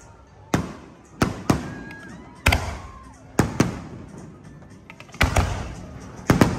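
Aerial fireworks going off: a string of sharp bangs about every second, several coming in quick pairs, each trailing off in a rumbling echo.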